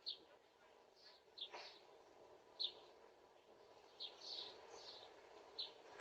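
Faint bird chirps: several short, high chirps at irregular intervals over a quiet, steady background.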